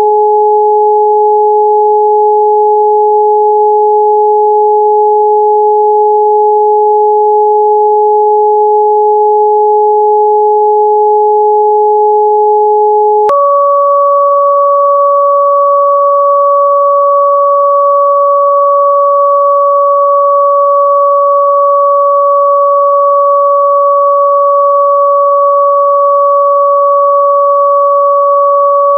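Electronically generated frequency-therapy sine tones, a steady pair an octave apart, that jump abruptly to a higher pair about thirteen seconds in and then hold steady.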